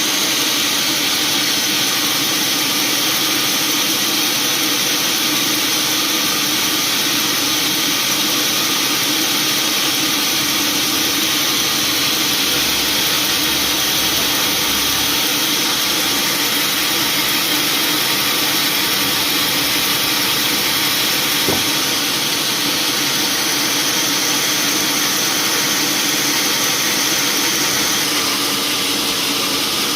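Sawmill machinery running steadily, a loud, even mechanical noise strongest in the high range.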